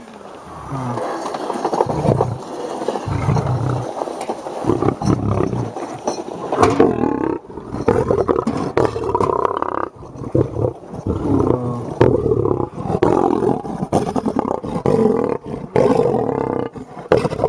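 Male lion at close range roaring and growling aggressively over its meat, one loud burst after another.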